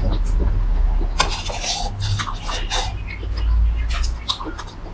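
Close-miked chewing and lip-smacking of a person eating boiled dumplings: a quick run of wet mouth clicks and smacks over a steady low hum.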